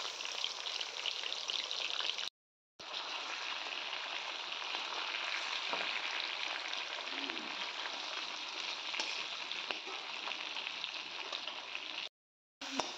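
Fish pieces and sliced onions sizzling in hot oil in a metal wok: a steady, even hiss that breaks off twice for a moment.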